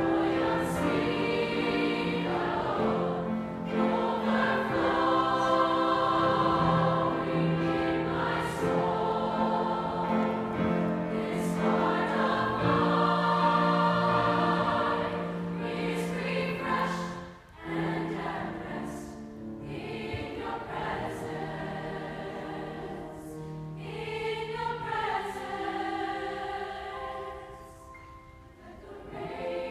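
Mixed-voice children's and youth choir singing a slow sacred song in held notes, with grand piano accompaniment. The singing is full for the first half, breaks off briefly a little past halfway, then goes on more softly, dipping near the end before rising again.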